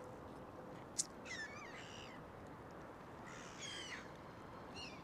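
Gulls calling: three rounds of high, harsh calls over a steady outdoor hiss, with a single sharp click about a second in.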